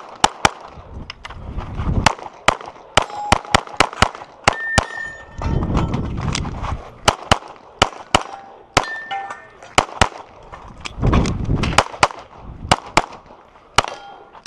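Glock pistol fired in quick strings of shots, dozens in all, with steel targets ringing after some of the hits.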